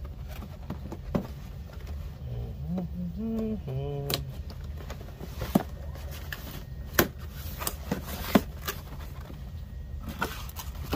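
Cardboard box being handled and opened by hand: scattered knocks, taps and scrapes of cardboard and packing tape. A brief wordless vocal sound, rising in pitch, comes about two seconds in.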